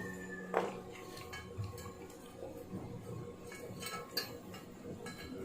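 Scattered light metallic clinks and taps of tools against metal, the sharpest about half a second in and a small cluster near the end.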